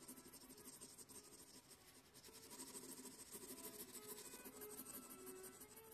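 2B graphite in a 2 mm mechanical pencil scratching over sketch-pad paper in quick, short, repeated strokes, hatching fur texture.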